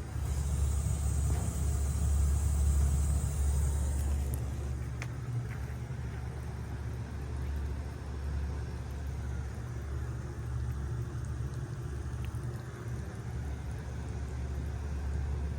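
Bard 4-ton wall-hung heat pump running in cool mode with a steady low hum. A high hiss over it stops about four seconds in.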